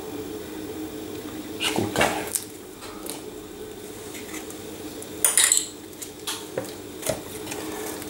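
A spoon clinks and scrapes against glass as jam is spooned into a glass blender jug, in two short clattering spells about two and five seconds in, with a few lighter taps after. A steady low hum runs underneath.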